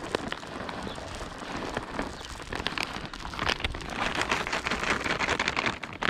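A bag of cashews crinkling and rattling as it is handled and the nuts are shaken out, a dense run of small clicks that grows busier about halfway through.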